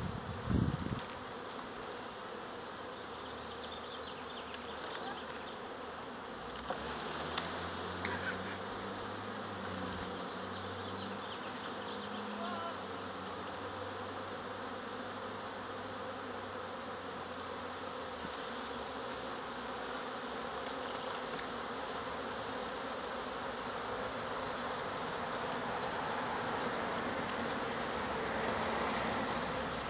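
A honeybee swarm buzzing steadily, the dense hum of many bees flying around the swarm, growing slowly louder near the end.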